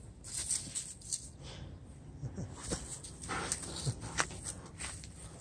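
Giant schnauzers pushing through dry leaves and garden plants, a series of short rustles and crunches, with a few brief whines around the middle while they hunt for a cat hidden in the shrubs.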